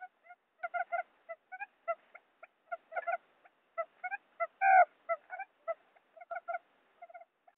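Wild quail calls used as a trapping lure: short pitched notes repeated in quick, irregular runs, with one longer, louder note about halfway through.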